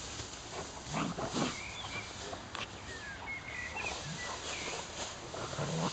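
Two dogs, a young Kuvasz and a smaller black dog, play-wrestling in tall grass: short, irregular growls and grunts over rustling grass.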